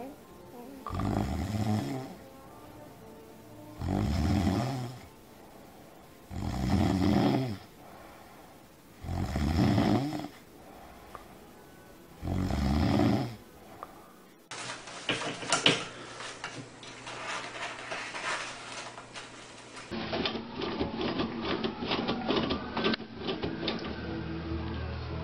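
Snoring: five long, loud snores about three seconds apart. About halfway through it cuts off and gives way to a dense rattling clatter of clicks.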